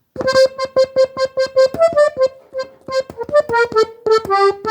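Diatonic button accordion in G playing a quick run of short, detached notes, one repeated note alternating with higher melody notes. It is the closing phrase of a cumbia melody.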